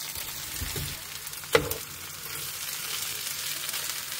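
Hash browns sizzling as they fry in a pan, a steady hiss, with one sharp knock about one and a half seconds in.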